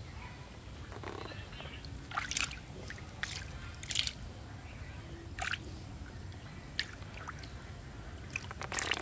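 Freshly caught fish, tilapia among them, flapping in shallow water and splashing: about six short, sharp splashes at irregular intervals, with a quick flurry of them near the end.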